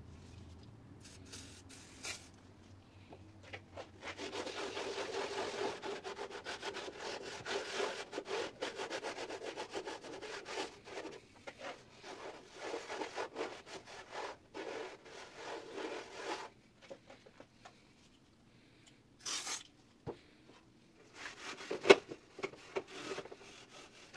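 Hand-wiping an old metal toolbox, rubbing over its painted surface in repeated quick strokes, with short pauses. One sharp knock near the end.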